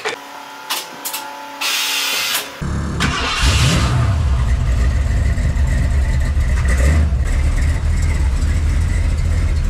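The Ford Ranger show truck's engine is cranked and catches about two and a half seconds in. It rises briefly as it fires, then idles steadily with a low, heavy exhaust note.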